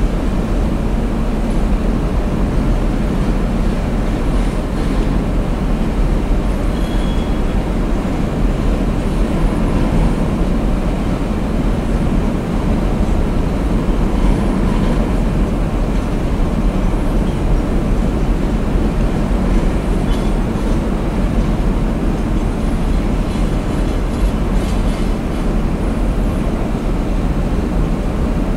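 Double-stack intermodal well cars rolling past: a steady, loud rumble of steel wheels on rail.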